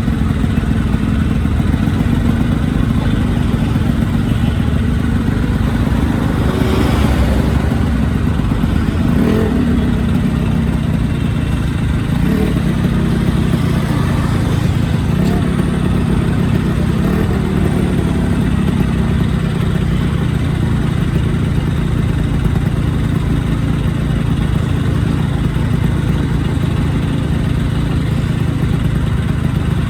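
Yamaha RX-series two-stroke motorcycle engine running steadily, with a couple of brief changes in pitch about a third of the way in.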